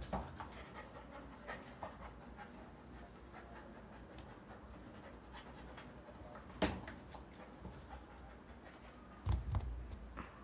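Bakharwal puppy panting as it plays with a rope toy on a tile floor, with scattered scuffs and knocks of the toy and paws. There is a sharp knock about six and a half seconds in and a short cluster of thumps near the end.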